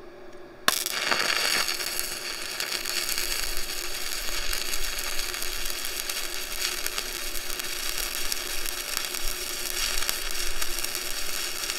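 Stick-welding arc from a 7018 electrode at 100 amps: it strikes with a sharp snap under a second in, then burns with a steady crackling sizzle as the bead is laid.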